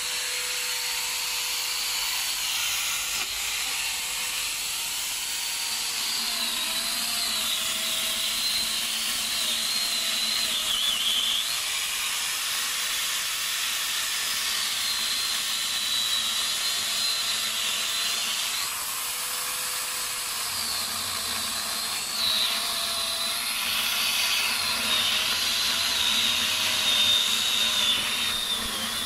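Electric 4-inch angle grinder fitted with a chainsaw bar and chain, running continuously as it cuts into a tree trunk. Its high whine wavers up and down in pitch as the chain bites into the wood and eases off.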